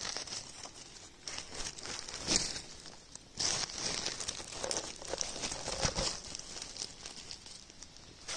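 Dry fallen leaves and twigs crinkling and crackling under a hand that works through the leaf litter to pick a mushroom. The crackling comes unevenly, with louder spells about two seconds in, about three and a half seconds in and about six seconds in.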